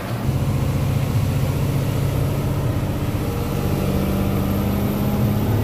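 Tata 4225 truck's diesel engine running steadily, heard inside the cab as a low, even drone.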